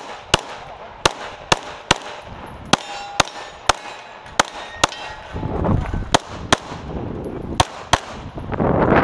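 Rapid pistol shots from a SIG P320 fitted with a Lockwood slide kit, about a dozen in quick strings roughly half a second apart with a couple of longer pauses. A rushing burst of noise comes in near the end.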